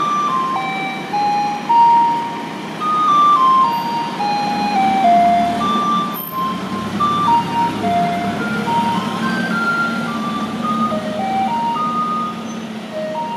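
Japanese garbage truck's loudspeaker playing a chiming electronic melody, one clear note at a time, over the running of its natural-gas engine, which grows louder about four seconds in as the truck pulls away.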